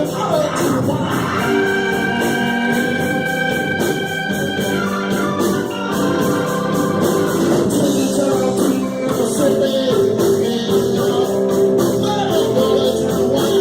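Music with a singing voice over long held chords, steady in level.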